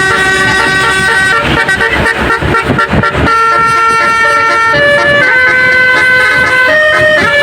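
Bus's basuri melody horn playing a tune: held notes that step from pitch to pitch, with a quick run of short stuttering notes from about one and a half to three seconds in.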